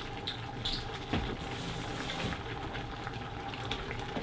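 Curry lamb simmering in a stainless steel pot, a steady bubbling with small crackles, with a few light clicks and rustles from a spice packet and measuring spoon.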